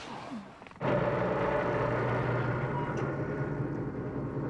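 Truck engine running steadily, cutting in abruptly about a second in.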